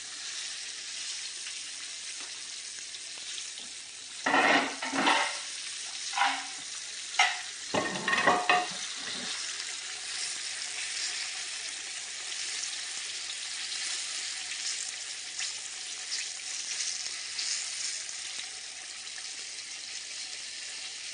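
Fish frying in butter in a skillet: a steady sizzle. Several loud sharp clanks and knocks come close together about four to nine seconds in.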